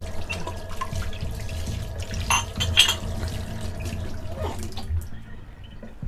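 Kitchen tap running into a stainless steel sink while a glass is rinsed under the stream, with two sharp clinks about halfway through. The water noise eases off near the end.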